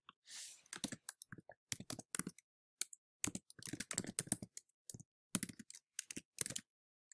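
Typing on a computer keyboard: irregular runs of quick key clicks, with short pauses between words.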